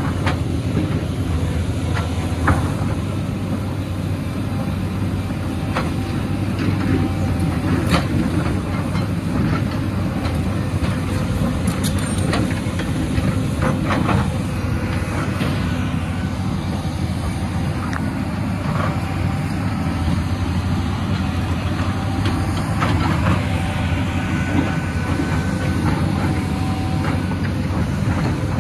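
Caterpillar crawler excavator's diesel engine running steadily under working load, with scattered clanks and knocks of the bucket against rock.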